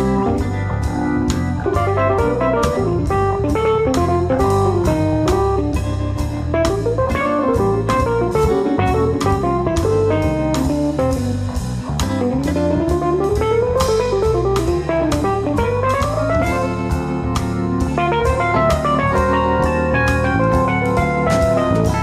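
Instrumental background music: a lead melody winding up and down over a steady drum beat of about three strokes a second, with bass underneath.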